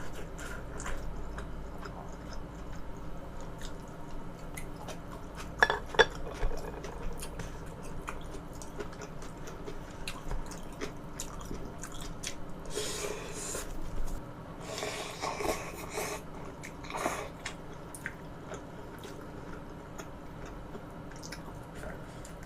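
Close-miked eating sounds: chewing and wet mouth noises, with two sharp clicks about six seconds in and two longer noisy stretches past the middle.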